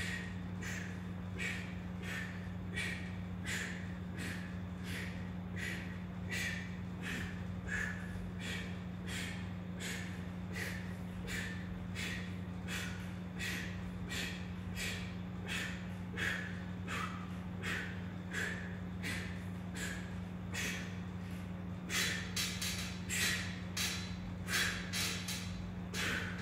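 A man breathing hard from exertion: short, sharp breaths in a steady rhythm, about one and a half a second, getting louder in the last few seconds. A steady low hum runs beneath.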